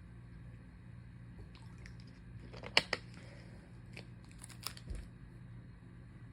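A plastic water bottle being handled: a few sharp crinkles and clicks, loudest as a quick pair about three seconds in, then a soft low thump, over a steady low hum.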